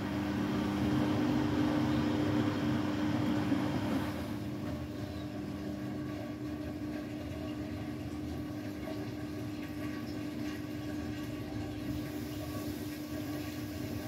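Beko WTK104121W washing machine tumbling its rinse load: the drum turns through water with sloshing over a steady motor hum. The sloshing drops away about four seconds in while the motor hum carries on.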